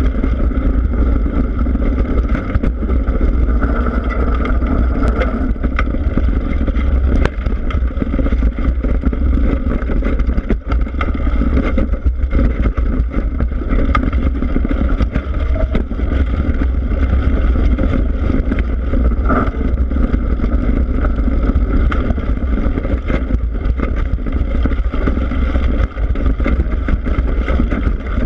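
Continuous rumble and wind buffeting from a camera mounted on a mountain bike's front fork as the front tyre rolls over a dirt and leaf-covered forest trail, with frequent small clicks and knocks from the bike and the ground.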